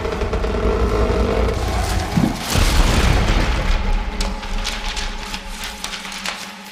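Quad bike engine running while it is ridden, with wind rumble and knocks on the handlebar-mounted microphone; it gets quieter toward the end.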